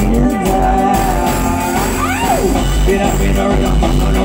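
Live band playing amplified rock music with electric guitar, bass, drums and keyboard, a note sliding up and back down about two seconds in.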